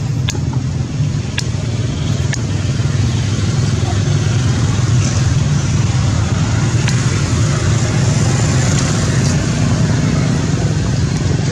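A steady, loud low rumble with a noisy hiss over it, like engine traffic or wind on the microphone.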